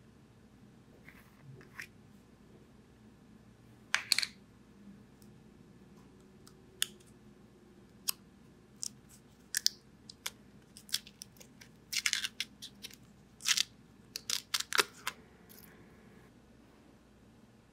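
Small plastic jar of nail gel being unscrewed and its foil-like inner seal handled and peeled: scattered sharp crackles and clicks, a short burst about four seconds in and a busy run of crinkles between about twelve and fifteen seconds in.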